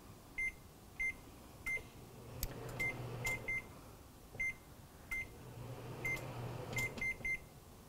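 About a dozen short, single-pitched beeps from a microwave oven's keypad, one per button press at uneven intervals, as a 30-minute kitchen timer is keyed in.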